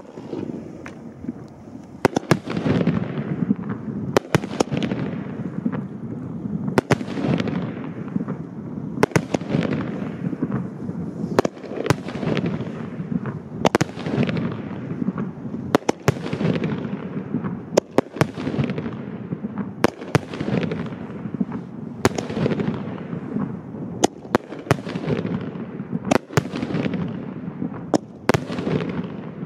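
A 50-shot consumer firework cake firing 2-inch peanut shells in steady succession, about one every two seconds. Each shot is a sharp bang, often a quick double bang from the paired shells, trailing off into a rolling rumble and echo.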